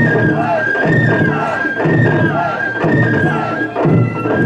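Japanese shinobue bamboo flutes playing a high, held melody that steps between a few notes, over taiko drums struck in a steady beat about once a second.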